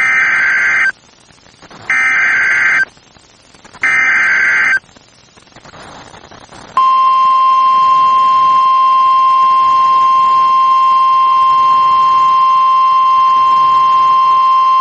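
NOAA Weather Radio Emergency Alert System alert: three bursts of digital SAME header data, each about a second long and a second apart. About two seconds later the steady 1050 Hz warning alarm tone begins and holds.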